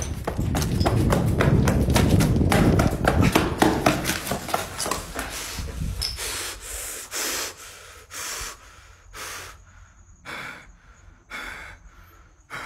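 A man breathing hard and gasping close to a phone's microphone, with rustling and knocking from the phone being jostled over the first few seconds. After that the breaths come as separate heavy puffs about once a second, spacing out toward the end.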